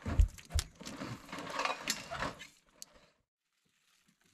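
Knife cutting and scraping giant river prawns on a wooden plank: a quick run of sharp clicks, knocks and scrapes that stops about three seconds in.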